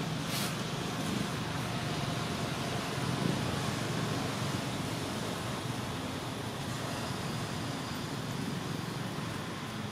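Steady outdoor background noise, a low rumble with hiss, with a short sharp sound just under half a second in.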